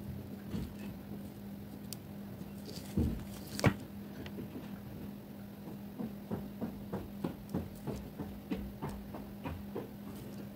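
Faint handling noises of nail-art work at a table: a soft knock and a sharp click about three and a half seconds in, then a run of light ticks about three a second in the second half, over a steady low hum.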